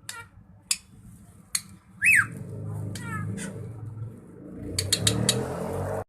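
Drongo singing: sharp high chips, a loud curving whistle about two seconds in, and a quick run of clicking notes near the end, over a low rumbling background noise that cuts off suddenly.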